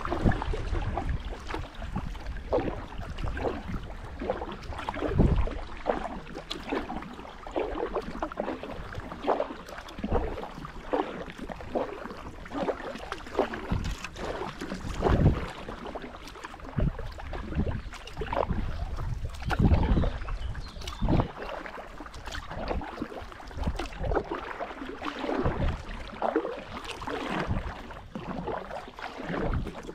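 Canoe paddle dipping and pulling through calm creek water in uneven strokes, with splashes and drips, and several louder low bumps along the way.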